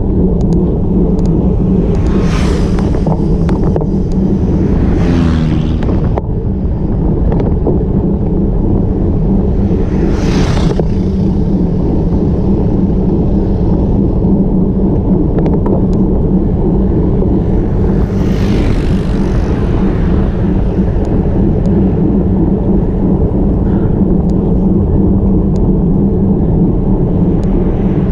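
Steady wind and road rumble picked up by an action camera on a road bike climbing at a slow pace, with a few brief swells of hiss.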